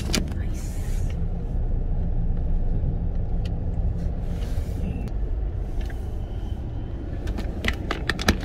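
Steady low rumble of a car's engine and tyres heard from inside the cabin as the car rolls slowly.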